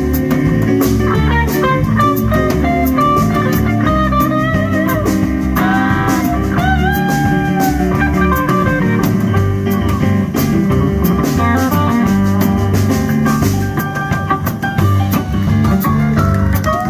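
Live blues band playing an instrumental passage: an electric guitar plays a lead line with bent notes over a drum kit keeping the beat on cymbals and drums, with a full low end underneath.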